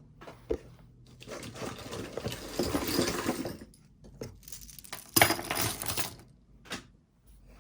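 Costume jewelry being handled and sorted by hand: clinking and rustling of chains and small pieces in two spells, one starting about a second in and a shorter one around five seconds in, with light clicks between.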